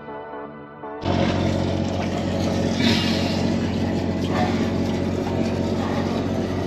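Faint ambient music, cut off about a second in by a loud, steady low mechanical hum with water sloshing close to a microphone at the waterline.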